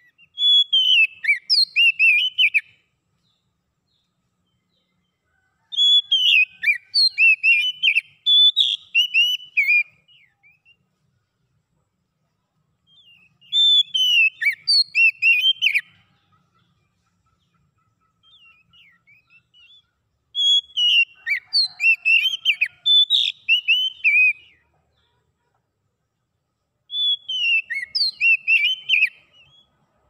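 Oriental magpie-robin singing: five bursts of quick, varied whistled and chattering notes, each a few seconds long, with short pauses between.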